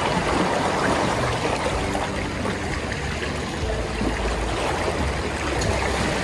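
Steady rushing of water with no break.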